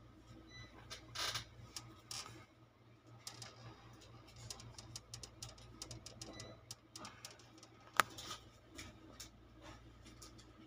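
Scattered light clicks and ticks, with one sharp click about eight seconds in, over a steady low hum.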